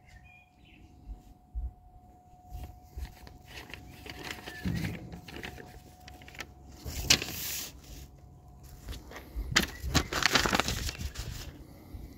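Handling noises around a Kymco Agility 50 scooter's seat: the seat is lowered and shut with a sharp knock about seven seconds in. Then comes a stretch of crackly paper rustling as a registration document is handled.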